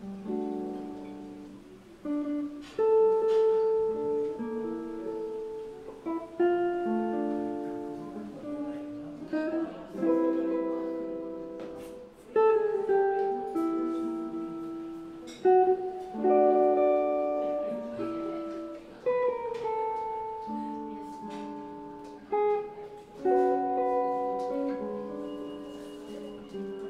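Solo jazz guitar playing slow chords, each struck chord ringing out and fading before the next.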